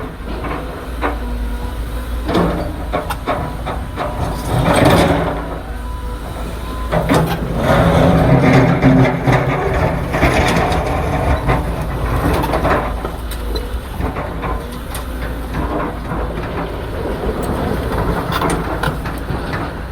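A large excavator working: heavy engine running steadily with a low rumble, louder surges of machinery noise about a quarter of the way in and again around the middle, and scattered metallic clanks and knocks.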